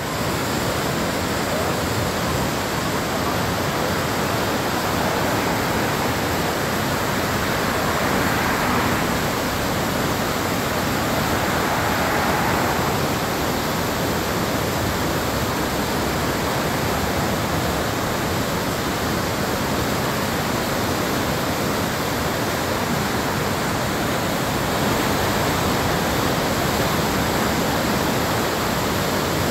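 Whitewater rapid pouring over a rocky drop: a steady rush of water.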